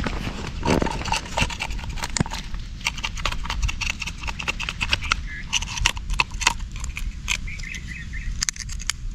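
Scales being scraped off a large whole red snapper with a small blade: a fast, irregular run of scratchy clicks and scrapes.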